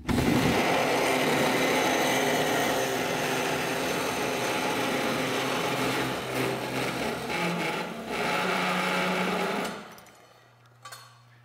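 Dake cold saw's carbide blade, fed with coolant, cutting through a metal exhaust tube: a steady, loud cutting noise over the saw motor's hum. Near the end the cut finishes and the cutting noise stops, leaving only the motor's low hum.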